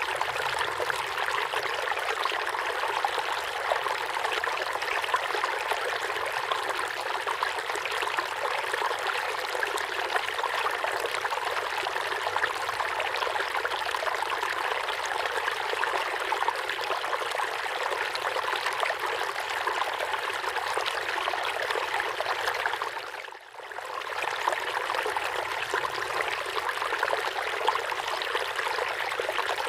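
River water flowing steadily over stones in an even, unbroken rush, with a brief dip in level about three-quarters of the way through.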